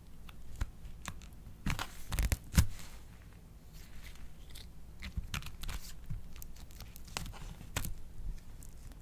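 Slime being worked by hand, making irregular sticky crackles and clicks, with a louder cluster of pops a little over two seconds in.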